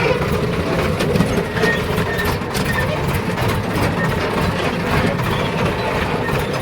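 Heavy diesel engine running steadily, with scattered light clicks and knocks over the engine sound.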